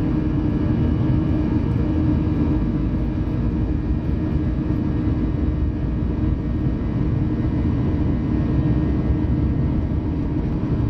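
Steady cabin noise of a Boeing 737-900ER rolling on the ground: the hum of its CFM56-7B turbofans mixed with low rumble from the wheels on the pavement, heard inside the cabin.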